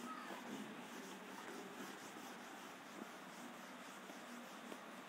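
Quiet room tone with a few faint soft ticks.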